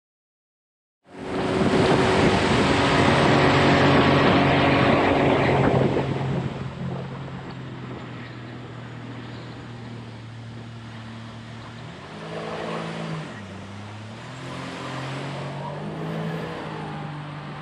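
Jet boat's 250 hp outboard running at speed. It starts abruptly about a second in, loud with rushing wind and spray for the first few seconds, then settles to a steady drone. The engine note dips and climbs again about twelve seconds in.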